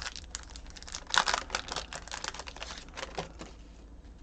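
Trading card pack wrapper crinkling and crackling in the hands as the pack is opened, in a quick run of crackles, loudest about a second in, that stops about three and a half seconds in.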